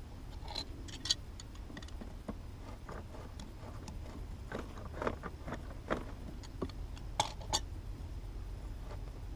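Scattered light clicks and knocks of small hard parts being handled, the sharpest twice about a second in and twice a little after seven seconds, over a steady low rumble.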